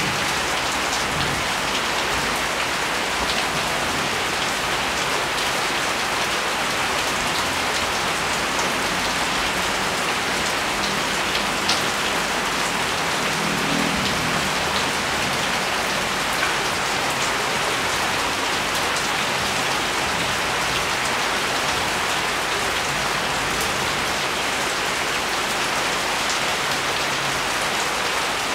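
Steady rain falling and pattering on surfaces, an even unbroken hiss, with one sharper drop tap a little before halfway.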